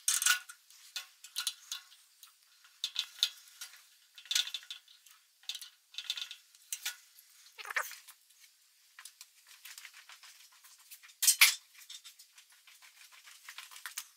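Small metal tools and parts handled at a drill press: scattered light clinks and clicks as a bit is fitted into the chuck and the part sits in the vise, with one louder clank about eleven seconds in.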